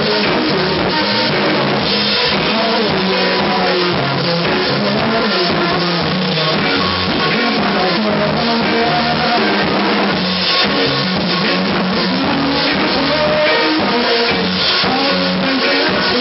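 Rock band playing loud and steady without a break: drum kit with cymbal strikes, electric guitar and singing. The sound is in poor audio quality.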